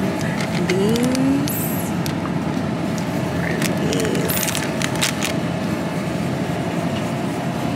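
Steady background hum of a supermarket's refrigerated aisle, with brief crinkles of plastic packaging as a hand handles a bag of cookie dough about four to five seconds in.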